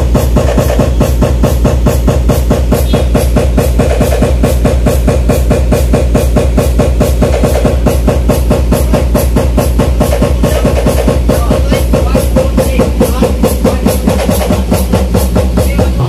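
Dance remix with a fast, steady drum beat and heavy bass, played loud over a PA sound system during a sound test.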